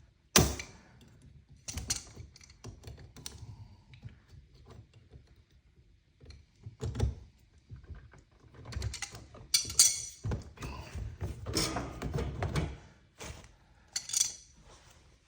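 Scattered knocks, clicks and rattles of plumbing parts being handled as a dishwasher drain hose is refitted to the sink drain, with the sharpest knock about half a second in and a busier run of rattling a little after the middle.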